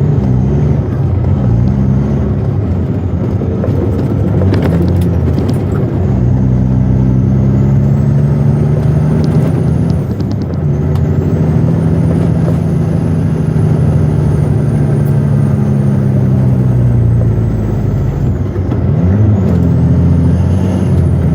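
Western Star logging truck's diesel engine working hard under load on a snowy hill climb, its pitch dropping about ten seconds in and dipping and recovering near the end. A faint high whine rises and falls with the engine, and a few short clicks come about four seconds in.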